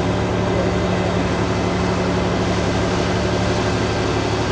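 Steady machine drone: a constant low hum over an even hiss, unchanging throughout.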